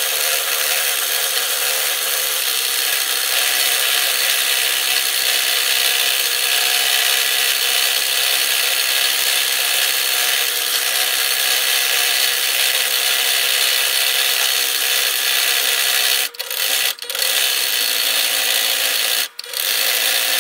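Scroll saw cutting through wood, a steady even sawing hiss with most of its energy high up, which stops briefly three times near the end. The cutting is plausibly fast-forwarded, which would raise the saw's pitch.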